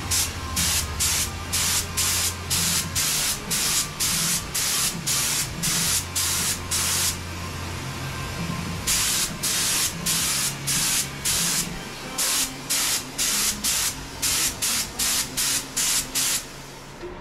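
Eastwood Concours Pro HVLP spray gun with a 2.0 mm tip spraying metal-flake intercoat in short trigger pulls: about two hissing bursts a second, with a pause of about a second and a half midway. A low hum runs under parts of the first half.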